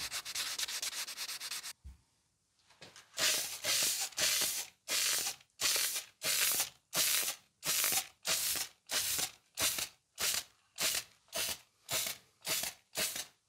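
Sandpaper rubbing over the painted metal body of an air hammer during wet sanding. After a short pause, spray paint is hissed onto the part in short, even bursts, about two a second.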